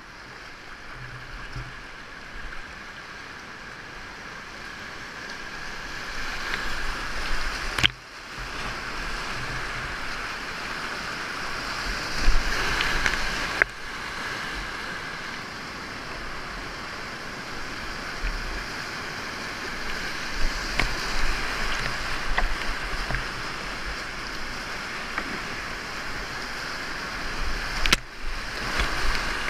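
Whitewater rapids rushing around a kayak, heard up close from the paddler's head-mounted camera, growing louder as the boat drops into the rapid. Splashes break through, and three times the sound dips sharply for a moment.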